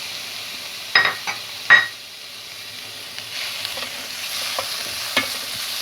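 Shrimp, carrots and calamari sizzling in butter in a frying pan while being stirred, with two sharp metallic clinks of the stirring utensil against the pan about a second in.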